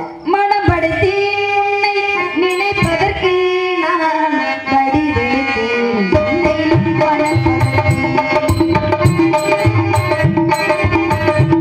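Live stage-drama music: a sustained, gliding melody over a double-headed hand drum. From about six seconds in, the drum strokes come steadily, with sharp high ticks keeping time.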